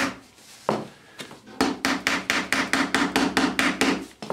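Small hammer tapping an MDPE pipe insert down into the end of a 25mm blue MDPE water pipe: a single tap, then a quick even run of taps, about five a second, that stops just before the end.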